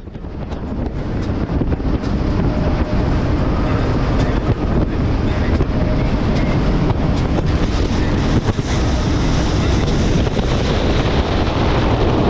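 Small fishing boat running under power, its motor a steady hum under heavy wind buffeting on the microphone and the rush of water.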